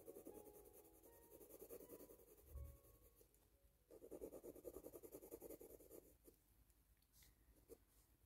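Pencil scratching on paper in quick back-and-forth shading strokes, faint, in two spells with a short pause about three seconds in, stopping about six seconds in.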